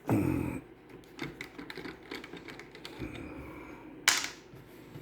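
Small irregular clicks and taps of tools and parts being handled on a workbench, with a thump at the start and a short hissing burst about four seconds in.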